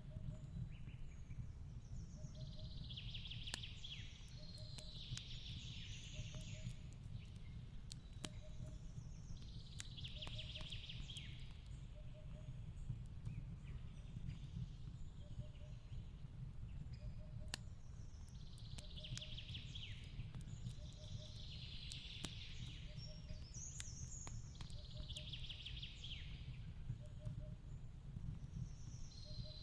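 Fireplace crackling, with scattered sharp pops over a low steady rumble, mixed with a forest bird singing short phrases every two to three seconds. Beneath them a faint soft call repeats about every second and a half.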